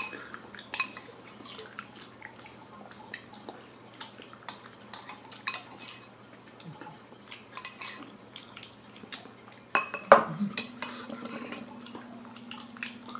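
Ceramic bowls and a metal spoon clinking on a table during a meal: scattered light clinks and taps as a bowl is handled and set down, with a louder cluster of clinks about ten seconds in.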